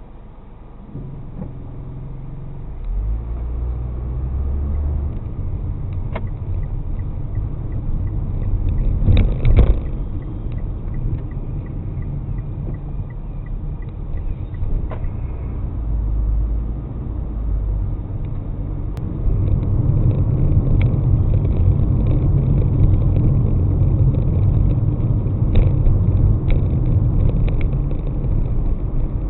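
Car driving along a road: steady low road and engine rumble that builds about a second in and grows louder again about twenty seconds in, with a short run of quick light ticks about ten seconds in and a few sharp clicks.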